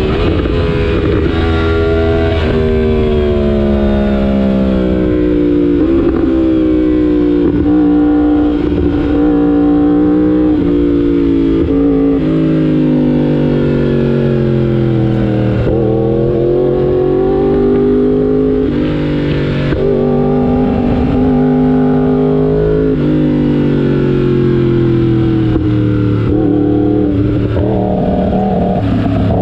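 Yamaha R1M's crossplane inline-four engine under hard riding on track. Its pitch repeatedly climbs and drops as the bike accelerates and slows through the gears.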